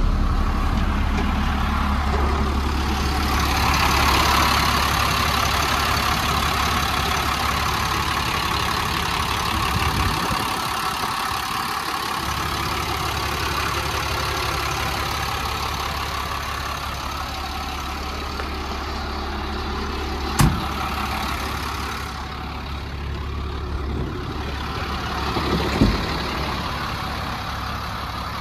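1999 International 4700 truck's diesel engine running steadily with a low drone, heard first from inside the cab and then idling. The drone drops out briefly about ten seconds in, and two short sharp knocks sound in the last third.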